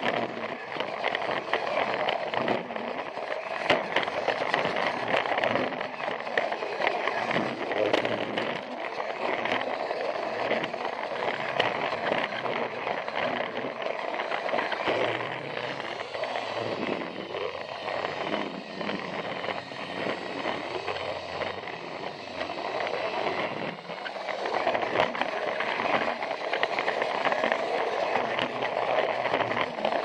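Battery-powered Plarail toy train running along plastic track: a steady whirring from its motor and gears, with frequent clicks and rattles from the wheels on the track.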